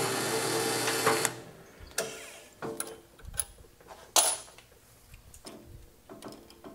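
Drill press running, switched off about a second in. Then a few sharp metallic clicks and knocks as the chuck is worked and the drill bit is changed for a tap.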